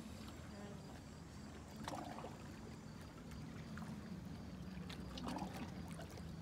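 Lake water lapping and trickling among shoreline rocks, faint and steady, with a low rumble and a few soft clicks.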